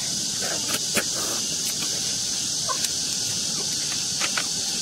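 Short wet sucking slurps, a few in all, as cooked cone-shaped sea snails are sucked out of their shells by mouth, over a steady high hiss of outdoor background.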